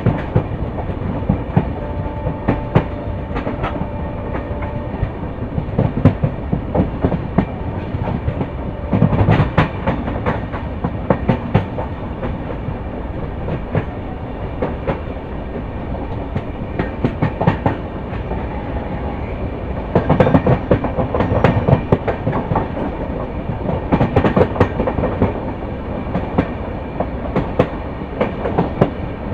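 LHB passenger coaches running over the track: a steady rumble, with bunches of wheel clacks over rail joints coming several times.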